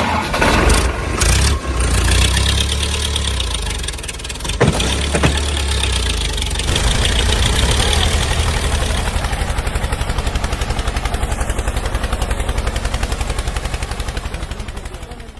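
Tractor engine starting and then idling with a fast, even chug. There are two sharp knocks about five seconds in, and the engine fades out near the end.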